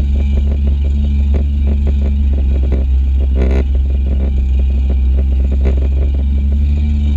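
Kawasaki stand-up jet ski's engine running steadily at speed, with frequent irregular knocks as the hull slaps over the water.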